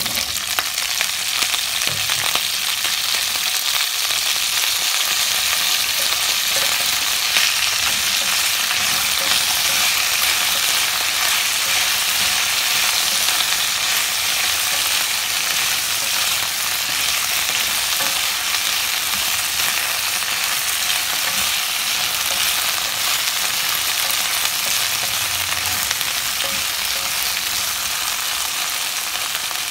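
Cauliflower and broccoli florets sizzling steadily in hot oil in a pan, tipped in at the start and stirred with a wooden spatula.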